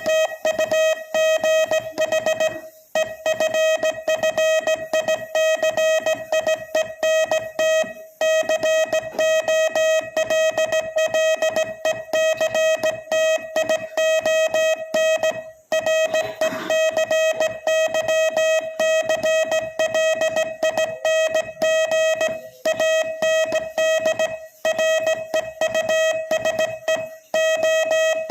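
Morse code sent at slightly above 20 words per minute: a tone of about 600 Hz keyed on and off in a rapid string of short and long beeps, broken by a few slightly longer gaps between words.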